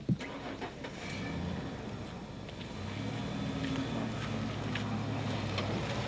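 A vehicle engine running steadily at low revs, a hum that sets in about a second in and grows stronger about three seconds in. There is a short knock right at the start.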